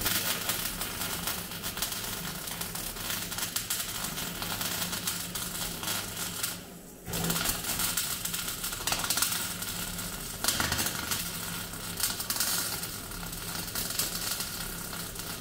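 MIG welder crackling steadily as a steel brace bar is welded into a car body shell, in two runs with a brief stop about seven seconds in.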